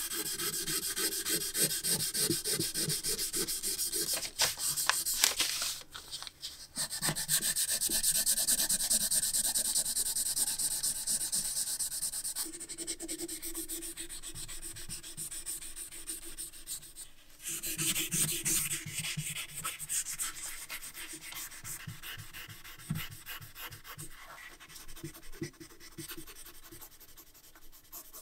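Quick back-and-forth rubbing strokes of a brush over a pencil sharpener's metal shell as paint is brushed on, a continuous scratchy hiss. It breaks off briefly twice in the first seven seconds and changes character about two thirds of the way through.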